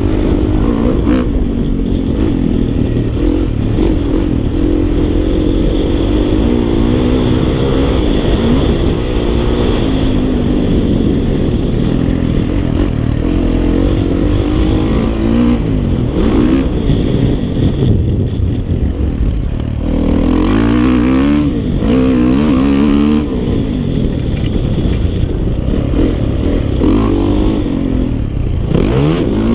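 Dirt bike engine being ridden, its pitch rising and falling as the throttle opens and closes and it goes through the gears.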